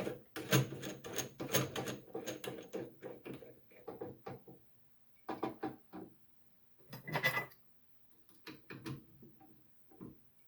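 Steel parts and a clamp being handled and adjusted on a drill press setup: a quick run of clicks and rattles, then a few separate metal knocks.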